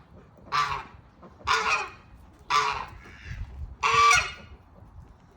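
Farm fowl calling loudly four times, each call about half a second long and roughly a second apart.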